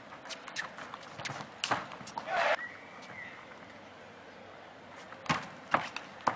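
Table tennis rally: the celluloid ball clicking off rackets and the table in quick succession, about three hits a second, then a short noisy burst and a thin high squeak about two and a half seconds in. After a quieter stretch the clicks start again near the end.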